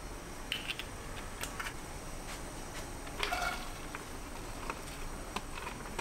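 Scattered light clicks and taps of kitchen handling, with a longer rustling clatter about three seconds in. Diced onion is being pushed off a metal tray and dropping into an enamelled cast-iron pot, with no loud sizzle.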